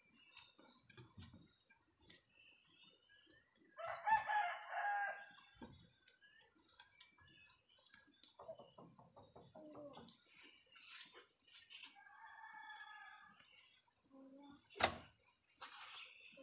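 A rooster crows once about four seconds in, over the steady high drone of insects; a fainter call follows later, and a sharp knock sounds shortly before the end.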